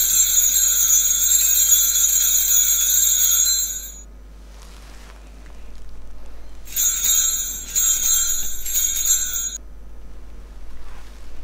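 Altar bells ringing for the elevation of the consecrated host: one long steady ring of about four seconds, then after a short pause a second ring of about three seconds in three or four quick shakes.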